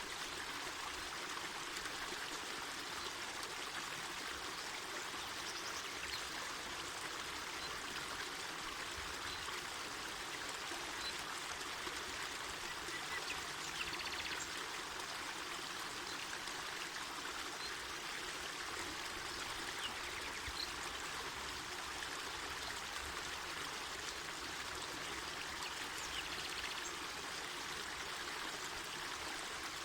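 Mountain forest river flowing: a steady, even rush of running water.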